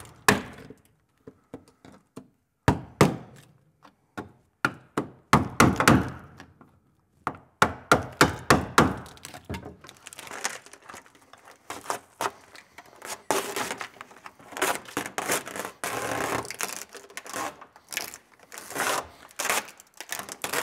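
Hammer striking a gasket scraper to chip Dynamat, a foil-backed tar sound deadener frozen brittle with dry ice, off a car's steel floor pan: clusters of sharp knocks and cracks. From about ten seconds in, this gives way to longer scraping and crackling as the frozen pieces are pried and pulled up.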